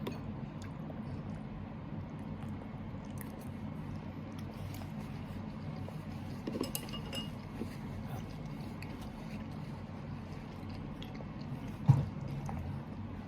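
Quiet mealtime sounds: light clinks of tableware, with one sharper knock about twelve seconds in, over a steady low room hum.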